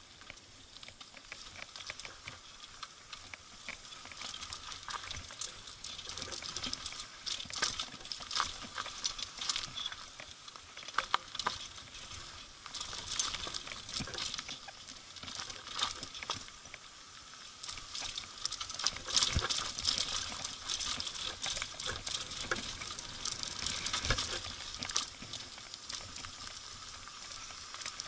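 Downhill mountain bike riding over a rough dirt forest trail: a continuous, irregular clatter of tyres on dirt and stones and the bike rattling, louder through the middle.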